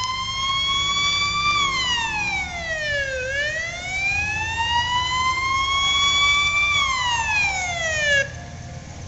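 Police car siren in a slow wail, sweeping up and down in pitch twice before cutting off suddenly about eight seconds in. A low vehicle rumble runs underneath.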